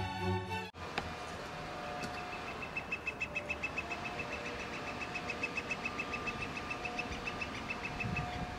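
Northern Flicker giving its long call, a rapid, even series of repeated "wick" notes, about seven a second, lasting about six seconds.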